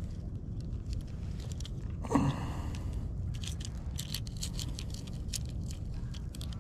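Fingers handling a fishing lure close to the microphone: many small clicks and crinkles, thickest in the second half, with one dull thump about two seconds in, over a low steady rumble.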